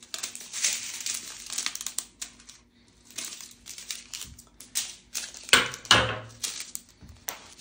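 Small plastic bags of diamond-painting drills crinkling and rustling in bursts as they are handled, loudest about three-quarters of the way through.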